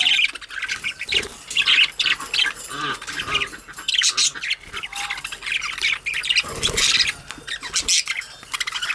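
Budgerigars chattering and squawking continuously, a dense stream of quick warbles and chirps from several birds.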